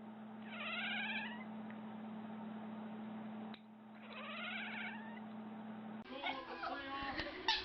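A cat's wavering, drawn-out meow, heard twice a few seconds apart, then assorted cat sounds and the start of a loud wavering yowl near the end.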